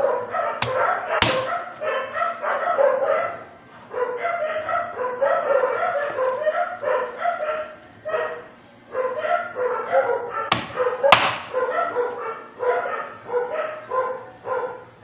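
A dog barking over and over in quick short barks, with brief pauses. A knife knocks sharply on a cutting board twice about a second in and twice again around ten seconds in.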